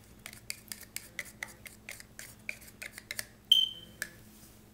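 Metal spoon scraping and tapping minced garlic off a small ceramic dish into a bowl: a run of light clicks and scrapes, then one sharper clink about three and a half seconds in that rings briefly.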